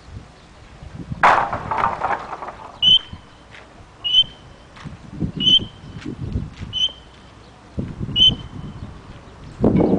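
Camel grinding its teeth: a loud rasp about a second in, then a run of short, high whistle-like squeaks about once a second, with low grinding crunches between them.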